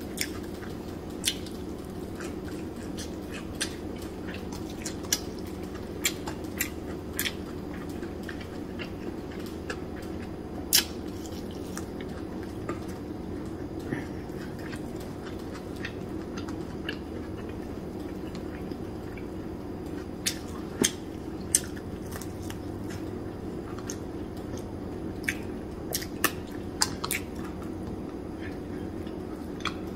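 A person chewing crunchy dried salted fish (tuyo) with rice, eaten by hand: irregular sharp clicks and crunches a few times every couple of seconds, over a steady low hum.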